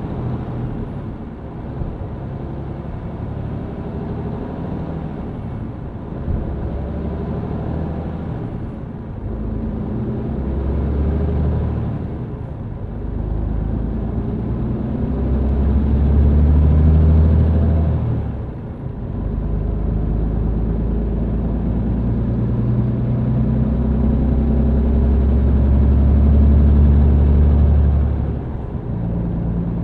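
MAN TGX truck's diesel engine heard from inside the cab while driving, a steady low drone that swells under load in several surges lasting a few seconds each, with short dips between them.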